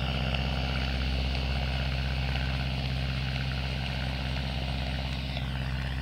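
Aeronca L3 light plane's small air-cooled four-cylinder engine and propeller running steadily as it flies overhead.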